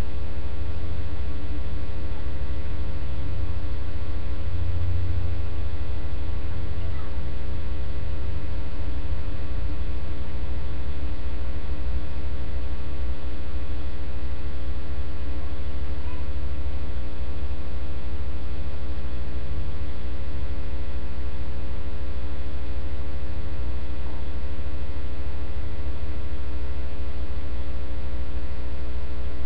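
Steady electrical mains hum with a stack of even overtones, loud and unchanging throughout.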